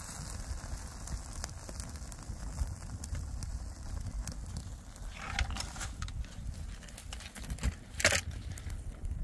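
Small stick campfire crackling with many sharp pops as liquid is poured onto it from a metal tin and it flares up. About five seconds in comes a brief rushing hiss, and about eight seconds in a single loud sharp knock, the loudest sound.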